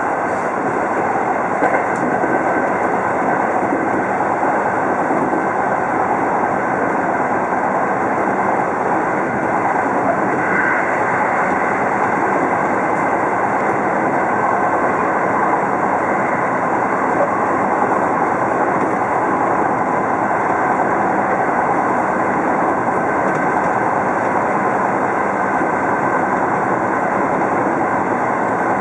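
Seibu commuter electric train running along the track, heard from inside the front cab: a steady rumble and rush of wheels on rails.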